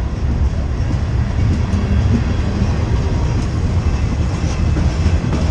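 Freight cars of a long mixed freight train rolling past close by: a steady, loud rumble of steel wheels on the rails, with some clickety-clack of the wheels over the rail joints.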